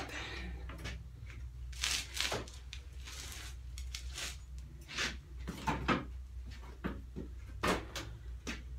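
Motorcycle pushed forward and stopped hard on the front brake again and again, the front fork diving: about ten knocks and clunks at uneven intervals over a steady low hum. This pumping of the fork is meant to force old oil and dirt out past the fork seals after cleaning them with a Seal Mate tool.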